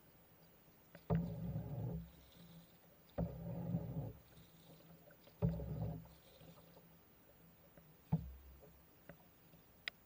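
A single-bladed paddle stroking through river water from a small boat, four strokes about two seconds apart, each starting with a sharp knock and followed by about a second of splashing water.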